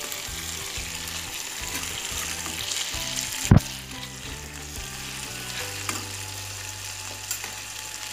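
Marinated fish steaks sizzling as they shallow-fry in hot oil in a kadhai on a high flame, with a metal spatula working among the pieces to turn them. One sharp knock about three and a half seconds in.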